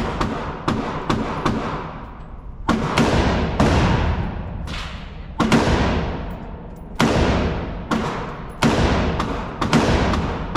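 A string of gunshots at irregular intervals, roughly a dozen across about ten seconds. Each crack is followed by a long echoing tail from the enclosed walls of an indoor range.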